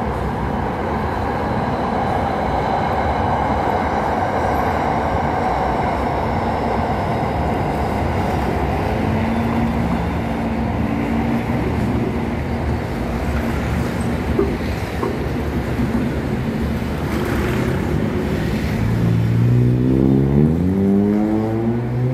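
Steady road traffic noise at a railroad crossing, with a faint falling whine in the first few seconds from an SRT Red Line electric commuter train slowing as it runs into a station on the viaduct. Near the end a road vehicle's engine revs up, rising in pitch as it pulls away.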